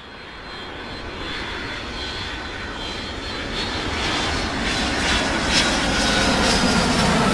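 Jet engines of an Airbus A380 airliner running as it rolls past on the ground: a rushing noise with a faint high whine that grows steadily louder.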